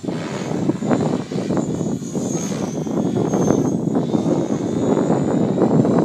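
Align T-Rex 550 electric RC helicopter flying overhead: a continuous rotor rush with a thin high whine that wavers up and down in pitch.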